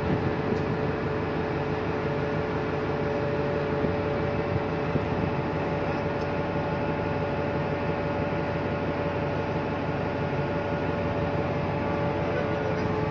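Steady mechanical hum of a ship's onboard machinery, heard on deck while the ship lies at anchor. Two steady tones sit over a constant rushing noise.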